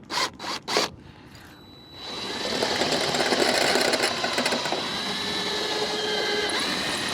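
Power drill with a small pilot bit: a few short bursts of the trigger, then about five seconds of steady drilling into the 1964 Chevrolet Impala's body to punch the first mirror-mounting hole, stopping at the end.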